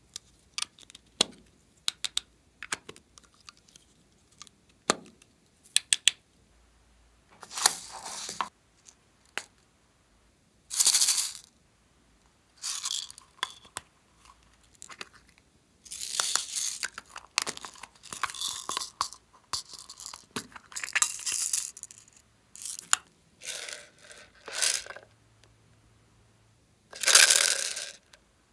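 Small plastic toy containers being handled and clicked open, with short bursts of rattling as small beads and glitter are shaken out of them onto slime. Scattered clicks come first, then a run of louder rattling pours, the loudest near the end.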